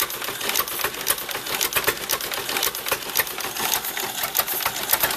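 1913 Marion-Overland's engine running at idle with a rapid, even clatter.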